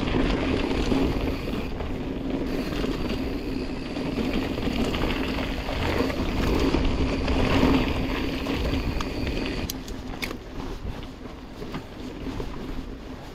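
Mountain bike riding singletrack: wind buffeting the camera microphone over the steady hum and rattle of the bike rolling along the dirt trail. It eases off after about ten seconds, with a couple of sharp clicks.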